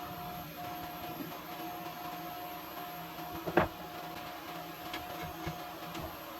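A single sharp knock about three and a half seconds in, with a few small ticks later, over a faint steady hum and a thin high tone that breaks off now and then.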